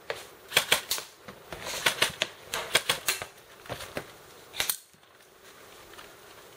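Airsoft guns firing in quick strings of sharp snapping shots, several a second, that stop about five seconds in.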